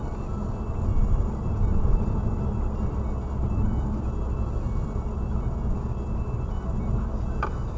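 Car driving at about 70 km/h, heard from inside the cabin: steady low engine and tyre rumble. A brief sharp squeak near the end.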